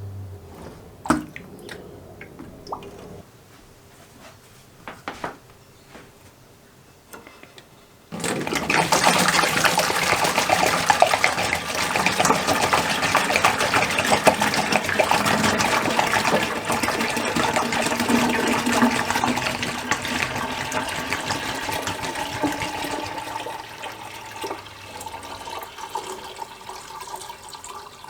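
A few light clicks and knocks of handling, then, about eight seconds in, water starts suddenly and rushes steadily for about fifteen seconds before tapering off near the end.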